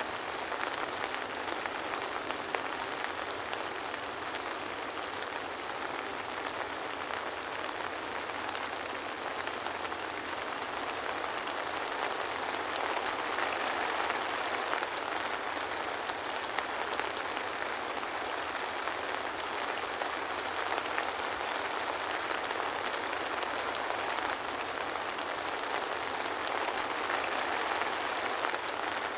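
Steady soft rain falling, a dense even patter of many small drops with fine individual drop ticks, without thunder.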